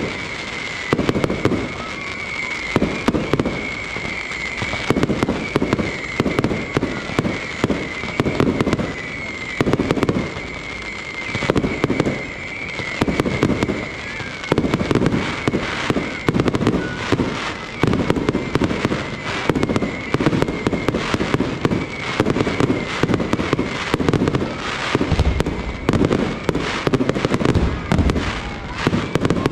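Aerial fireworks display in full barrage: a dense, continuous run of shell bursts and crackle, several reports a second, with a high wavering whistle through the first two-thirds.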